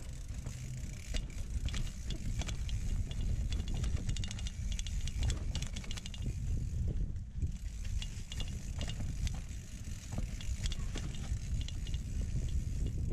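Mountain bike rolling down a rough dirt singletrack. The rear freehub ticks rapidly in runs while the rider coasts, and the chain and bike rattle and knock over bumps above a steady low rumble.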